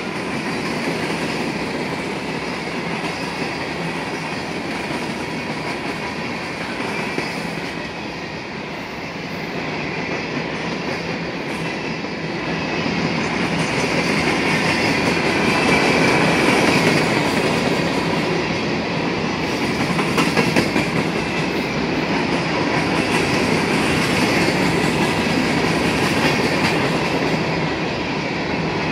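CSX freight train of empty rock cars rolling past: steel wheels rumbling and clicking over the rail joints, with a little wheel squeal, growing somewhat louder about halfway through.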